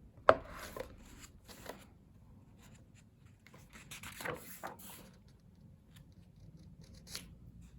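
Pages of a photobook being turned and handled, paper rubbing and flapping in short strokes, with a sharp tap about a third of a second in.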